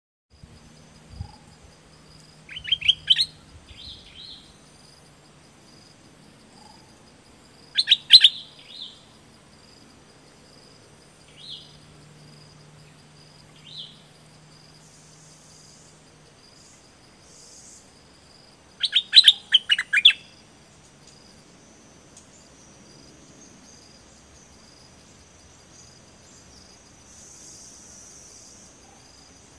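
Caged bulbul singing in short bursts of quick, clear notes: three main phrases, near the start, about eight seconds in and about twenty seconds in, with a few softer single calls between. A faint steady high-pitched tone runs beneath.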